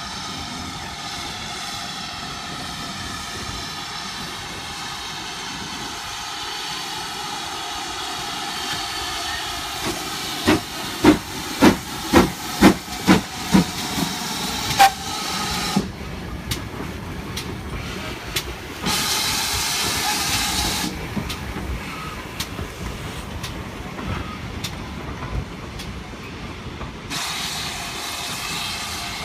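GWR Large Prairie 2-6-2T steam tank engine hauling loose-coupled goods wagons: steam hissing steadily, with a run of about eight sharp exhaust beats, roughly two a second, as it passes close. After that the hiss stops, then comes back in two short spells.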